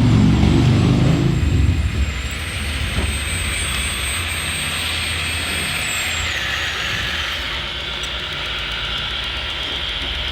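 Radio-controlled model construction machines running: a low engine-like drone, louder for the first two seconds and then steady, with a thin high electric whine over it.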